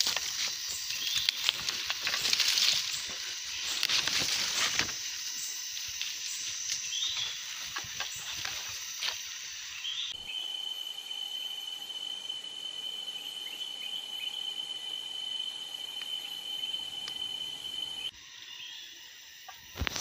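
Forest ambience dominated by a steady, high-pitched insect drone, with rustling and knocks in the first half. The sound changes abruptly about halfway through to a single steady insect tone over a soft hiss, and it drops quieter near the end.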